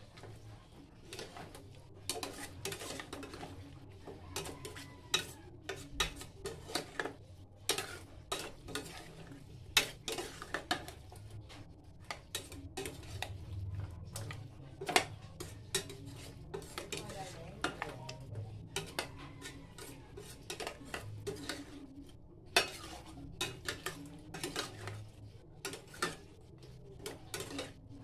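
Chicken pieces, tomatoes and vegetables being stirred in a stainless steel stockpot with a long-handled spatula, the utensil scraping and clanking irregularly against the pot's sides and bottom, over a light sizzle from the pan.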